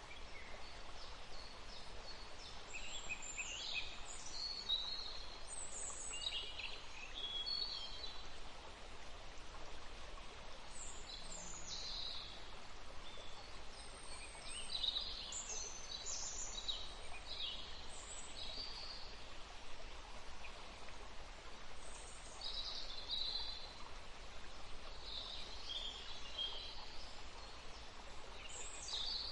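Several songbirds singing and chirping over a soft, steady background hiss, with short high phrases coming every second or two.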